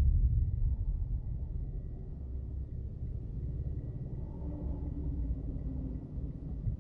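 Low rumble of a car's engine and road noise heard from inside the cabin. It eases off over the first two seconds as the car slows to a stop, then settles into a steady, quieter idle rumble.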